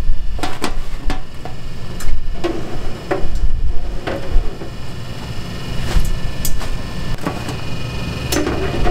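Wire mesh strainer knocking against the stainless deep fryer and a metal tray as fried twisted glutinous rice doughnuts are scooped out and tipped onto the tray: a dozen or so irregular sharp clacks over a steady low hum.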